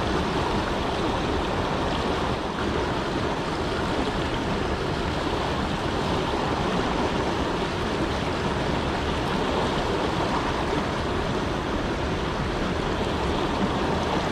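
Steady rush of flowing river water, with no distinct events.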